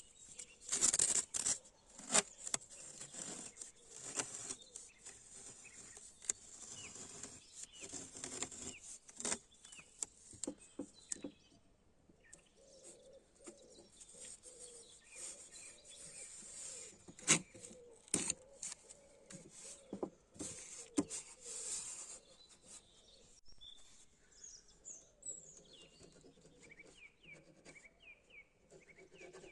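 Intermittent scratching and sharp clicks, busiest in the first ten seconds, with birds chirping faintly near the end.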